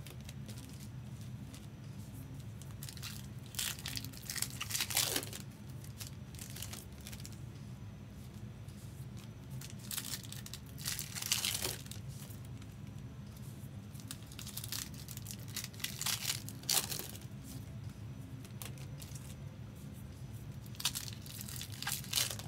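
Plastic trading-card packaging crinkling and tearing in four short spells, over a steady low hum.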